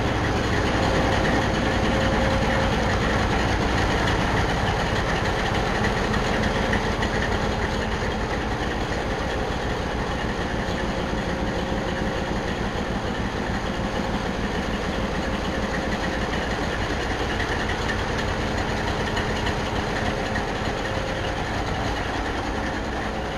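Diesel locomotive engine idling steadily.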